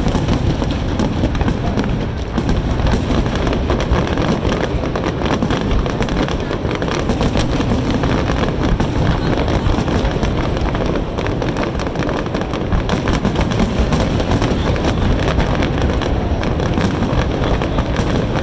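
Fireworks display going off in a dense, continuous barrage of bangs and crackles, with no break between bursts.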